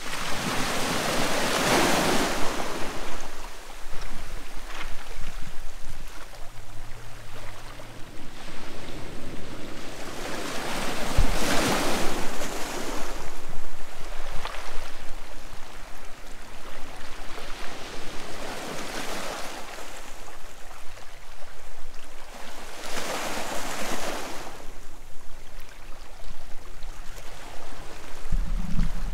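Sea waves breaking and washing up the shore, the surf swelling and fading four times, with wind rumbling on the microphone.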